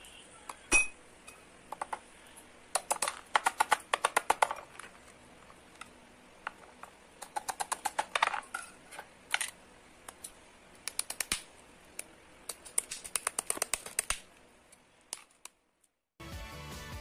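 Kitchen knife tip chipping and scraping ice off a frozen Geek Vape Aegis Pod, in quick runs of sharp clicks with pauses between. Background music comes in near the end.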